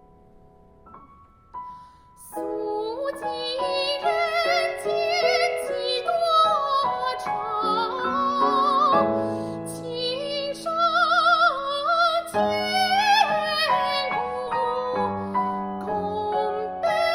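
A voice singing in a Peking Opera-style manner with wide, fast vibrato, accompanied by piano. A few soft, sustained piano notes come first, and the singing and fuller piano chords enter about two seconds in.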